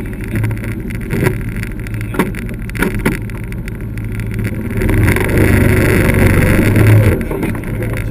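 Yamaha off-road buggy's engine running while driving, a steady low drone that grows louder for about two seconds from around five seconds in, with a few short sharp knocks early on.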